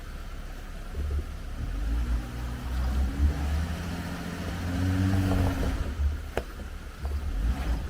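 Jeep Wrangler Unlimited engine pulling under load as it crawls a rough trail section, over a steady low rumble; the engine note swells and climbs a little from about two seconds in. A few sharp knocks come near the end.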